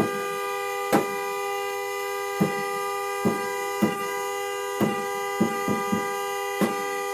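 A car horn stuck on, sounding one unbroken steady tone that will not shut off. Over it come about ten sharp knocks or thumps at irregular intervals, a second or less apart.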